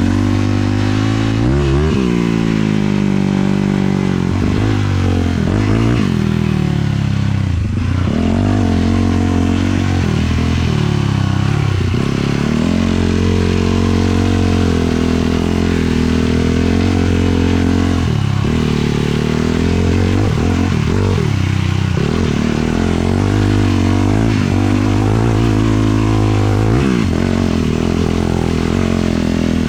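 Sport quad's 450cc single-cylinder four-stroke engine under way, its pitch rising and falling again and again as the throttle is worked and it pulls through the gears.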